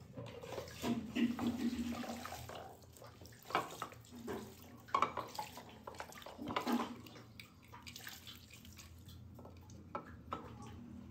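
Water poured from a mug over soapy plastic aquarium plants and a castle ornament, splashing in several uneven bursts as it rinses them off, quieter near the end.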